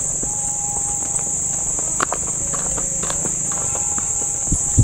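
Steady high-pitched chirring of insects, with a low rumble underneath.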